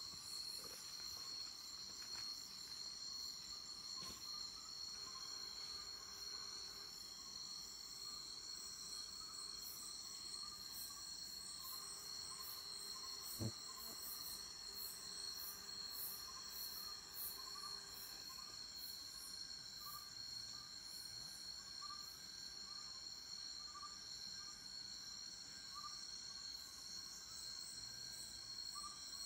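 Night insect chorus: a steady, high-pitched trilling in several bands, with a lower chirp repeating a little more than once a second and a single short knock about halfway through.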